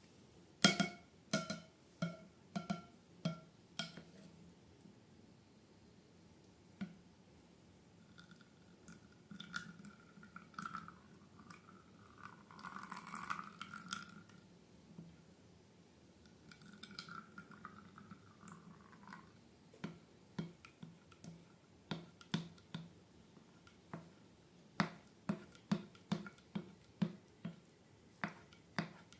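Sticky slime being worked by hand: series of wet clicks and pops at the start and again near the end, with a longer squelching, hissing stretch in the middle.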